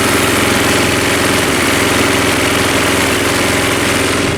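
Mountfield M3 petrol lawnmower engine running steadily a few seconds after starting, a little fast.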